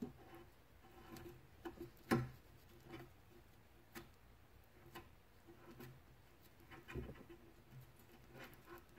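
Faint, scattered clicks and light knocks of a steel brake caliper slide pin being pushed into and worked in its greased bore in a caliper bracket held in a vise. The sharpest knock comes about two seconds in and another about seven seconds in.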